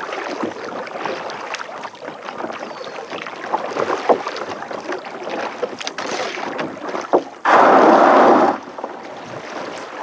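Water sloshing and splashing around a plastic kayak hull as it is paddled in, with small knocks and taps. About three quarters of the way through, a loud scraping lasts about a second as the hull runs up onto the gravel shore.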